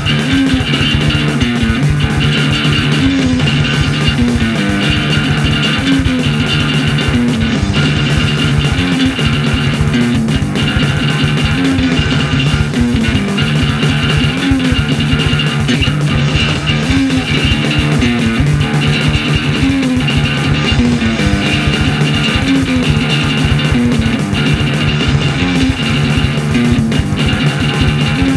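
Loud guitar-driven rock music with a low riff repeating about every four seconds.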